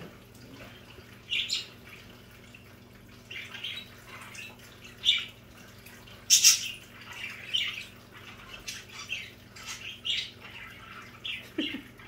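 Budgerigars chirping in short scattered calls while bathing, with bursts of water splashing and wing fluttering in a shallow bath dish.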